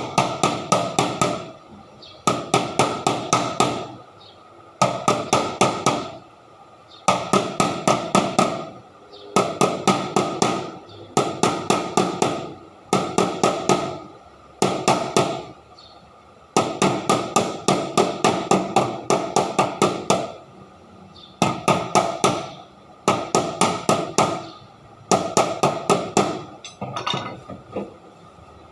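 Repeated bursts of rapid hammer blows, five to eight quick strikes at a time, with a short pause every two seconds or so.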